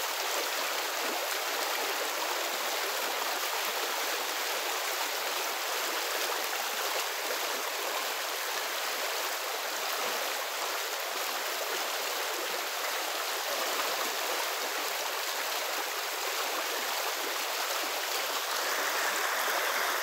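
Fast-flowing muddy river: a steady, even rush of running water.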